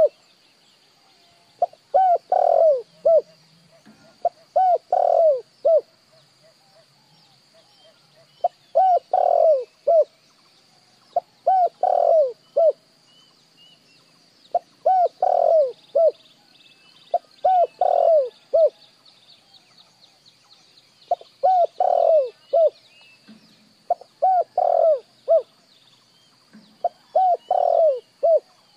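Spotted dove cooing: phrases of three or four short coos, repeated about every three seconds with a couple of longer pauses.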